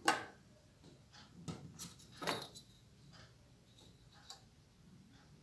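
Rulers being laid onto a cardboard platform: a sharp clack right at the start, a few lighter taps and knocks about a second and a half to two and a half seconds in, and one more tap about four seconds in.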